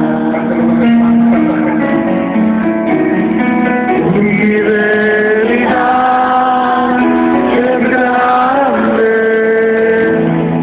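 Live song performance: several voices singing long held notes in harmony, including male voices, over a strummed acoustic guitar, heard through a dull, muffled recording.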